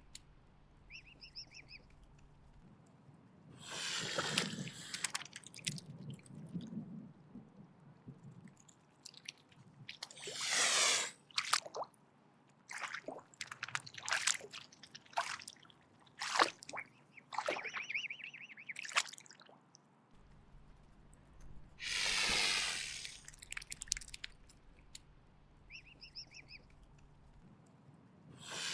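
Mute swan hissing: three long hisses of about a second each, with a run of short wet clicks and snaps between the second and third.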